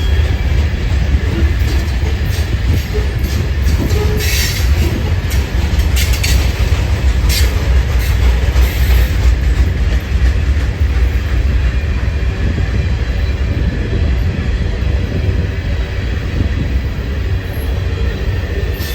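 Freight train cars rolling past with a steady heavy rumble of wheels on rail, with a few brief sharp metallic noises between about four and eight seconds in.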